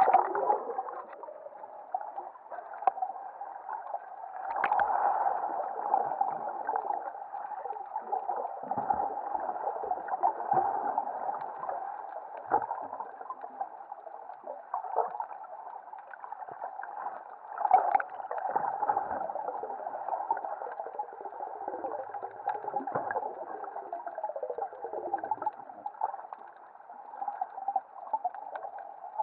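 Underwater sound picked up by an action camera submerged in the sea: a muffled, continuous rush of water with gurgling, starting with a splash as the camera goes under.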